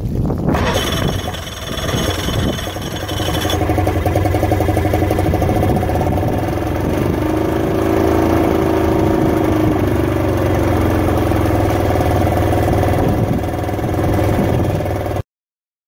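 Outboard motor running steadily out of the water, with water spraying around its spinning propeller. A high whine sits over the first few seconds, and the sound cuts off suddenly near the end.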